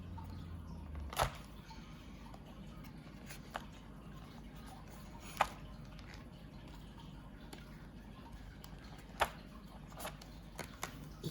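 Small sharp clicks and taps of a watercolour paint set and its packaging being handled, three louder clicks spread a few seconds apart among fainter ticks.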